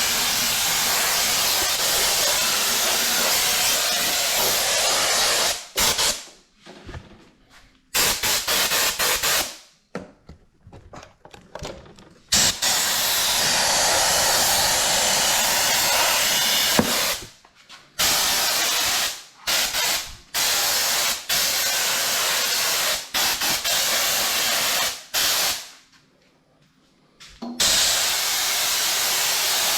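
Compressed air hissing from a blow gun, blowing grass clippings off a lawn mower. It comes in several long blasts of a few seconds, with short quick bursts in between, starting and stopping abruptly with the trigger.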